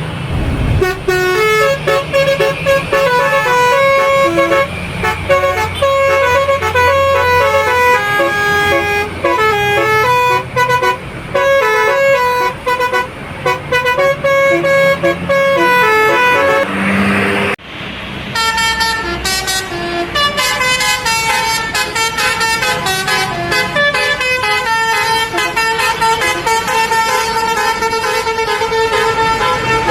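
Indonesian 'telolet' bus horn: a set of tuned air horns playing quick melodic tunes note by note, over the bus engine's low running. The tune breaks off abruptly a little past halfway, and a new horn tune starts at once.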